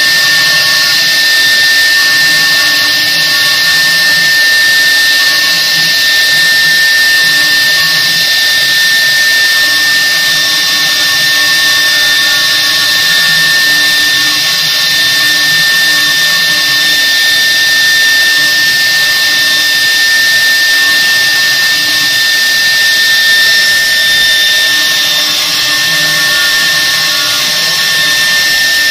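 Independent double-head CNC wood router's 3 kW water-cooled spindles running as the bits carve a pattern into an MDF panel: a steady high whine over cutting noise, with fainter lower tones that come and go as the heads move.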